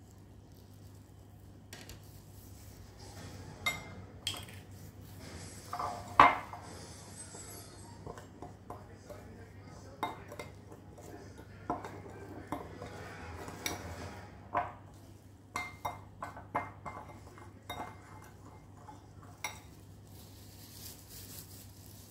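Metal spoon clinking and scraping in a ceramic bowl as dry ground spices are mixed, in irregular clinks and knocks with one loud knock about six seconds in.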